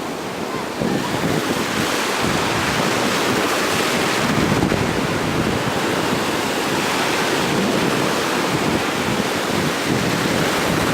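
Ocean surf breaking and rushing on the shore, a steady wash of noise that swells about four seconds in, with wind buffeting the microphone.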